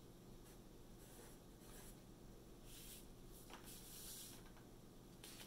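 Pencil writing on paper: several faint, short scratching strokes as a number is written.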